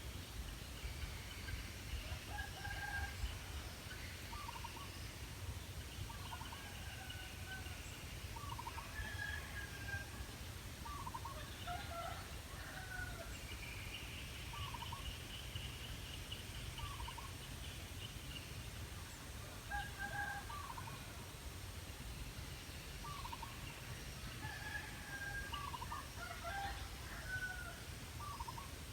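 Birds calling on and off: short chirps and whistled notes every second or two, with a longer trill about halfway through, over a low steady rumble.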